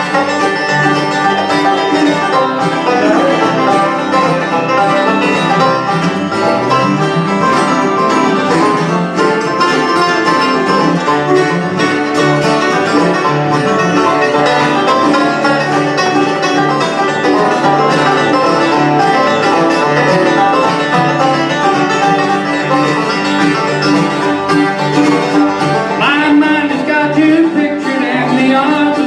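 A live bluegrass band playing acoustically: five-string banjo rolls, mandolin, two flat-top acoustic guitars and upright bass, with no singing through most of it.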